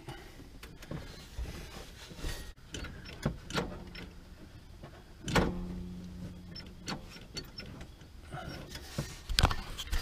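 Hand work on a golf cart's throttle cable and linkage: scattered metal clicks and knocks, with a brief steady tone about five seconds in that lasts a second and a half, and a sharper knock near the end.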